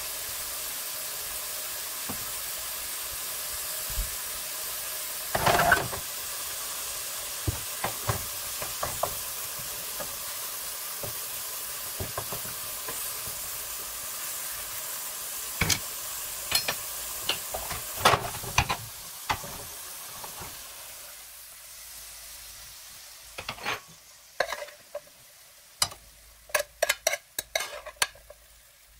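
A patty, potato slices and vegetables sizzling in a frying pan as a spatula stirs them, with scattered knocks of the spatula against the pan. The sizzle dies away about two-thirds of the way through, and a quick run of clinks and knocks follows near the end as the food is handled.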